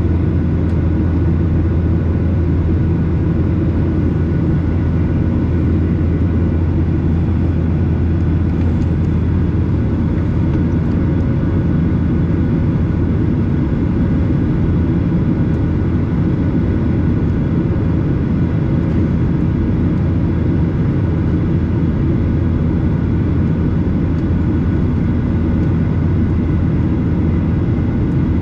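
Steady low drone inside the cabin of a Boeing 737-800 in flight, from its CFM56-7B turbofan engines and the airflow over the fuselage, heard from a window seat over the wing. A few faint steady whine tones sit above the drone.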